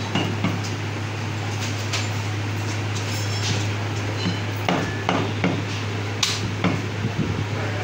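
Meat cleaver chopping mutton on a wooden chopping block: irregular sharp knocks, more frequent in the second half. A steady low hum runs underneath.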